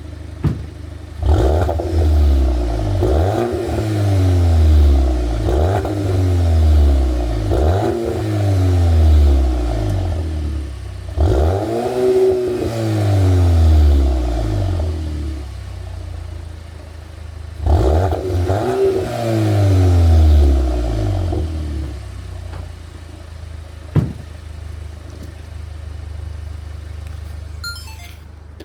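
Car engine revved through a new aftermarket exhaust: about six blips that rise and fall in pitch, one held longer in the middle, giving a deep rumble. It then settles to idle for the last third, with a single sharp click near the end.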